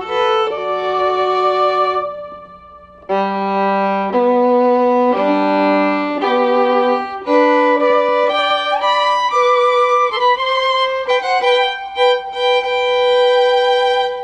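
Violin music: a slow melody of held notes, breaking off briefly about two seconds in, with a slide up in pitch near the middle and a faint steady low hum underneath.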